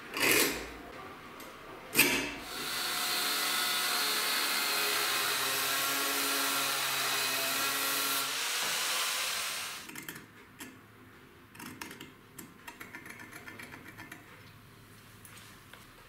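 Angle grinder with an abrasive cut-off disc cutting through steel angle iron: a steady run of about seven seconds that stops about ten seconds in. Two sharp knocks come just before it, and scattered small taps and clicks follow it.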